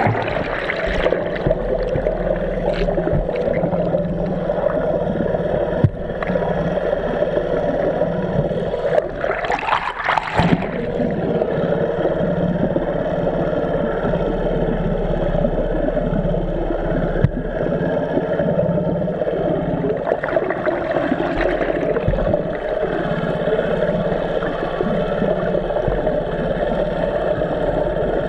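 Small outboard motor running under way, heard through an underwater camera: a steady engine and propeller drone with churning, bubbling water. The sound swells briefly about ten seconds in.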